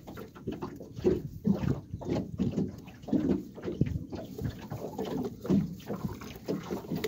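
Water lapping and slapping against the hull of a small flat-bottomed fishing boat in an uneven, choppy run of low splashes, with wind buffeting the microphone.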